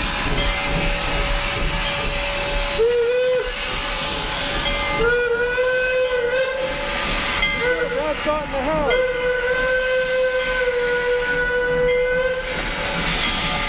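Steam locomotive whistle blowing three times over a steady hiss of steam: a short blast about three seconds in, a longer one near the middle, then a long blast of about five seconds that wavers in pitch as it opens.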